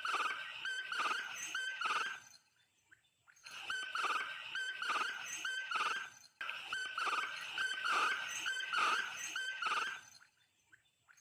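Quail calling: a fast series of short repeated notes, about two a second, in bouts broken by a pause of about a second early on and ending about ten seconds in.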